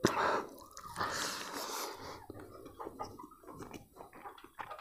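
Close mouth sounds of eating rice by hand: wet chewing and lip smacks with many small clicks, and a couple of breathy hisses in the first two seconds.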